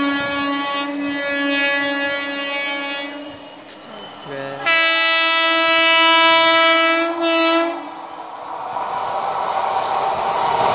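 Train horns: a steady, pulsing horn fades out over the first few seconds. Then the air horn of an approaching Indian Railways WAP-4 electric locomotive slides up in pitch as it starts, holds for about two and a half seconds, and after a short break gives a brief second blast. After the horn, the rumble of the oncoming train grows louder.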